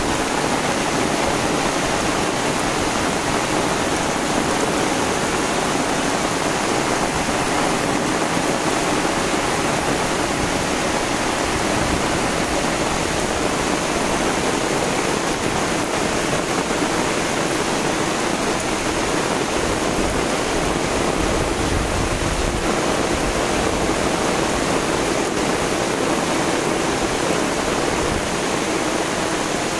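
Steady heavy rain falling on grass and stone.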